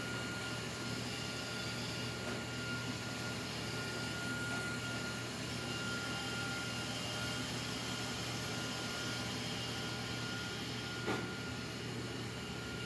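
Steady mechanical hum and hiss with a faint high-pitched whine, broken once by a short click about eleven seconds in.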